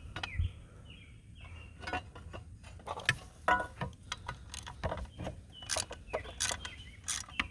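Scattered metallic clicks and knocks of hand tools on motorcycle exhaust parts as a fitting is worked loose, irregular and louder in the second half, with a few short high chirps between.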